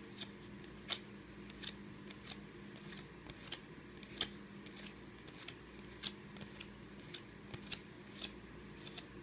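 Trading cards being handled and flipped through one at a time: a light, sharp click about every two-thirds of a second, some slightly louder than others, over a faint steady hum.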